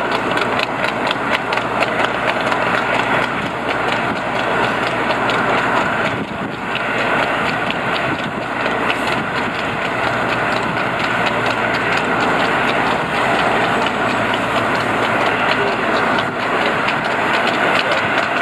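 Steady engine and road noise of a vehicle driving along the road, with the quick, even clatter of a trotting horse's hooves on tarmac.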